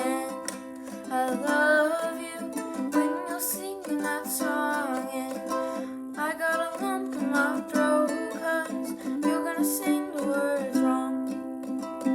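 Ukulele strummed in a steady rhythmic chord pattern.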